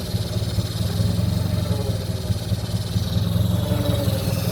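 Chevrolet Opala engine idling steadily, with a noise from its hydraulic power steering whose cause is unknown. The fluid level is full, so low oil is not the cause.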